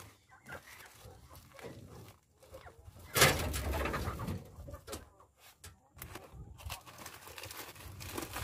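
A nesting duck's sounds, mixed with rustling of the straw and paper lining of a woven bamboo nest basket as a hand reaches among the eggs. The loudest part is a harsh, noisy burst about three seconds in that lasts a little over a second.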